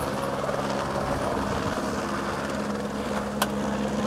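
Steady low engine drone with a constant pitch, and a single sharp click about three and a half seconds in.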